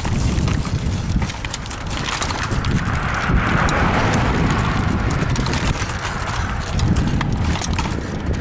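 Wind rumbling on the microphone of a moving camera, with scattered knocks and clicks, and a hiss that swells and fades in the middle.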